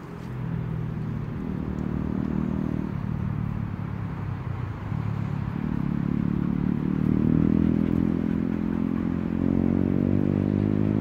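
An engine running nearby as a steady low drone, getting louder and rising slightly in pitch about halfway through.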